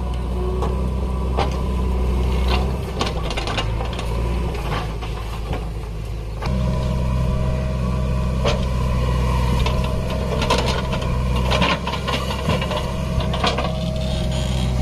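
Diesel engines of a JCB 3DX backhoe loader and a John Deere tractor running, the backhoe working its hydraulics as the rear bucket digs soil. The engine note steps up and gets louder about six and a half seconds in, with scattered sharp clanks and scrapes from the digging.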